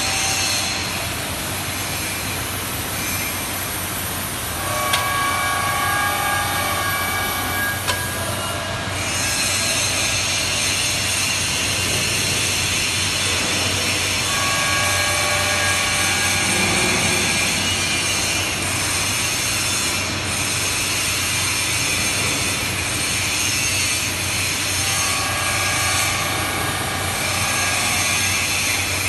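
Head-and-tailstock welding positioner's drives slowly rotating a large steel frame: a steady low hum, with high whining tones that rise in three stretches of a few seconds each and then fade.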